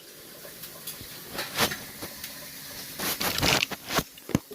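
Toys being handled and moved: scattered light knocks and clicks, with a short burst of rustling about three seconds in.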